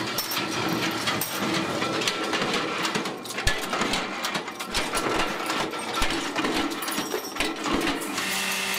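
Metalworking machines running with a busy metallic clatter of sharp clicks and a few dull thuds: a drill press boring holes in steel oil-filter end plates and a power press stamping them.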